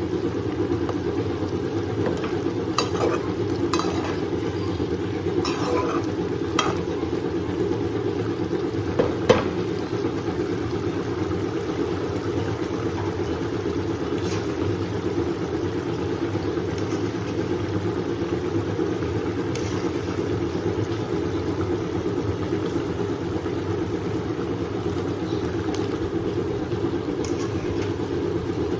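Steady low rumbling noise of stovetop cooking, with a few sharp clicks of a utensil against the pan in the first ten seconds.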